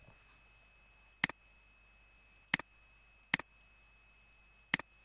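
Computer mouse button clicked four times at uneven intervals, each click a quick double tick of press and release, while lines are drawn in a paint program.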